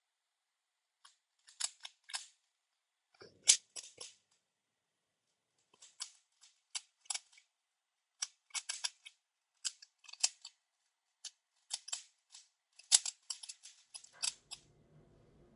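Rubik's Cube being solved by hand: quick, sharp plastic clicks from its layers being twisted, coming in irregular flurries with short pauses between.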